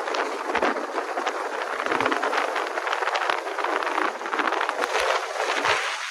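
Road and wind noise of a car driving, a steady rushing sound with no clear engine note.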